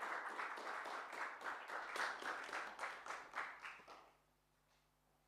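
Audience applauding, the clapping thinning and dying away about four seconds in.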